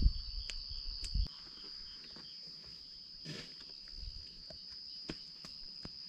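An insect trilling steadily on one unbroken high note, with a low rumble in the first second and a few light clicks and taps scattered through the rest.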